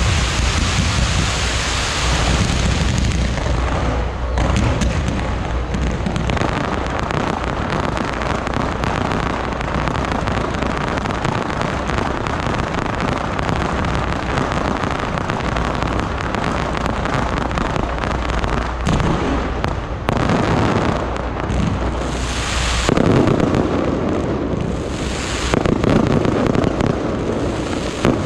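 Fireworks display firing without a break: a dense stream of rapid pops and bangs from ground-launched comets and aerial shells over a steady low rumble, getting heavier in the last few seconds.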